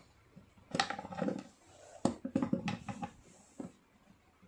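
Steel cutting pliers clicking and scraping against the plastic parts of a spin-mop bucket's central drum as a jammed part is wrenched loose, in irregular clusters of sharp clicks.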